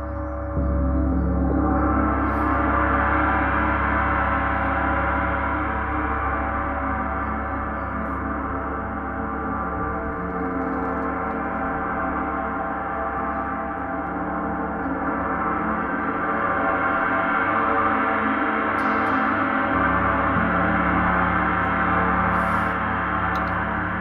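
Paiste 34-inch Symphonic gong played with a large felt mallet: a dense, sustained wash of many overlapping tones that jumps in loudness about half a second in, then swells and ebbs slowly.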